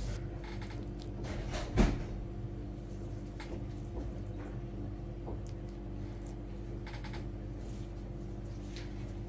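Light kitchen handling sounds as minced beef filling is scooped from a plastic tub and set onto dough squares on a wooden table: scattered soft clicks and scrapes, with one sharp knock about two seconds in. A steady low hum runs underneath.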